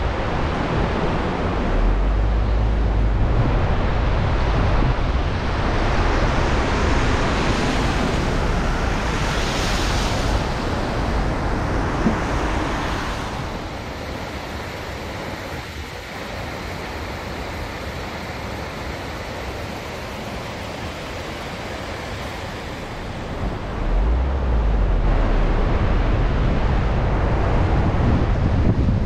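Wind and road noise from a car driving on a wet road in heavy rain: a steady rushing hiss with a low rumble. It turns quieter about halfway through and picks up again near the end.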